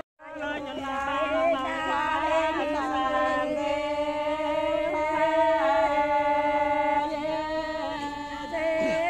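A voice singing or chanting a melody in long held notes that waver and bend in pitch, after a brief gap at the very start.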